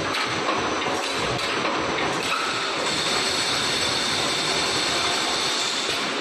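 Wire mesh welding machine for 3D EPS wall panels running: a steady, dense mechanical clatter with a few sharp clicks, and a high whine that sets in about halfway through.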